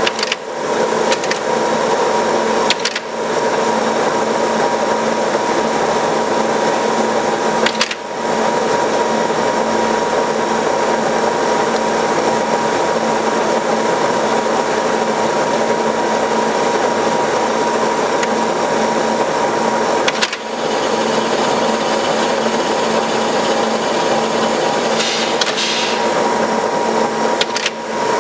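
1952 Brown & Sharpe automatic lathe running through its cycle, turning small rivets: a steady, loud mechanical run with a constant hum. A few brief dips in level come about 3, 8 and 20 seconds in, and a short higher hiss comes near the end.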